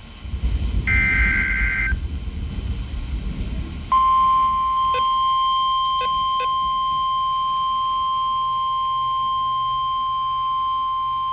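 The last short burst of a weather alert's screeching digital data header. A low rumble runs under the opening seconds. Then, about four seconds in, the NOAA Weather Radio 1050 Hz warning alarm tone starts: one loud, steady, unbroken beep that holds at the same pitch and signals an incoming warning.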